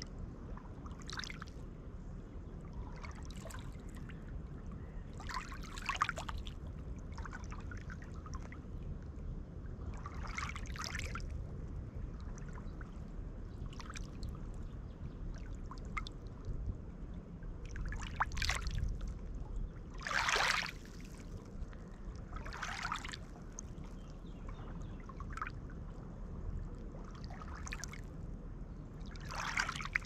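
Small lake waves lapping and splashing onto a pebble shore, one wash every two to three seconds, the loudest about two-thirds of the way through, over a steady low rumble.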